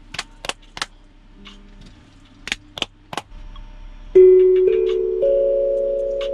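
A beat being worked up and played back through studio monitors: a few sparse sharp percussion clicks, then about four seconds in a loud held keyboard chord enters, its notes shifting twice and slowly fading.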